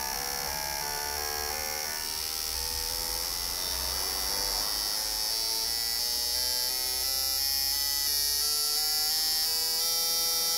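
Fuel injector cleaning and test machine pulsing a set of 2009 Toyota Corolla 1.8 injectors during a flow and equalisation test. It makes a steady electric buzz with a hiss of spray, growing a little louder.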